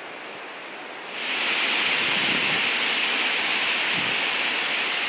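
Wind rushing through the trees, a steady hiss that jumps louder about a second in and holds.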